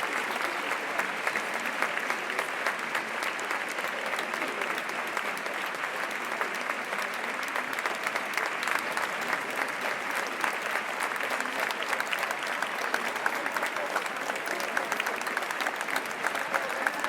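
A street crowd applauding steadily: many hands clapping together at an even level, with a murmur of voices under it.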